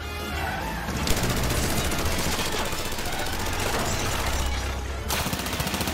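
Rapid automatic gunfire in long sustained bursts, a film sound effect, starting about a second in and lasting about four seconds over a steady low rumble.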